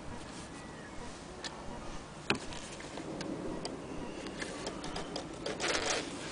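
Handling noise: a few scattered light clicks and a short rustle of cloth near the end, as stitched fabric is held and pulled about near a hand-crank sewing machine. One click about two seconds in is sharper than the rest.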